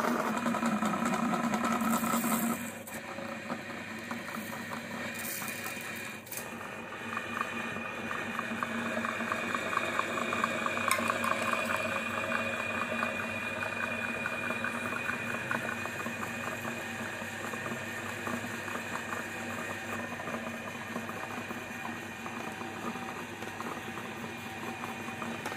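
Meat grinder motor running with a steady hum while it crunches and crackles through small topping jars and their contents, forcing them out through the grinder plate. The sound is louder for the first couple of seconds, drops abruptly about two and a half seconds in, and dips briefly around six seconds.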